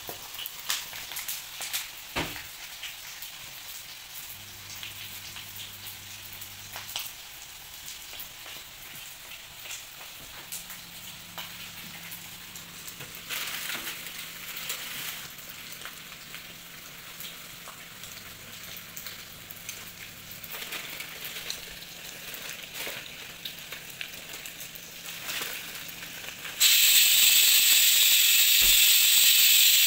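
Beef intestine pieces deep-frying in oil in a pan, a steady sizzle with frequent small pops and crackles. Near the end, as the pieces are turned with tongs, the sound jumps suddenly to a much louder, steady hiss.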